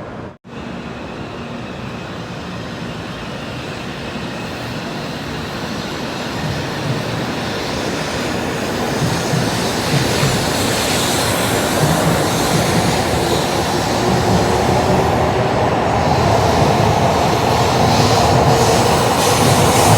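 Sanyo Shinkansen bullet train running through the station, its rushing wheel-and-rail noise growing steadily louder over the whole stretch.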